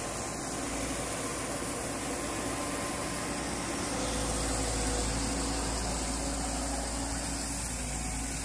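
JCB JS140 tracked excavator's diesel engine running steadily at working speed, with a deeper rumble from about four seconds in as the machine swings its arm.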